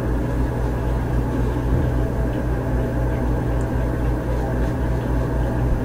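Steady low hum with an even background noise, unchanging throughout.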